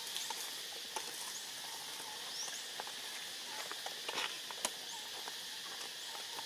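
Long-tailed macaques moving on dry leaf litter: scattered crackles and rustles of leaves and twigs, the sharpest a little after four seconds in, over a steady high hiss of insects.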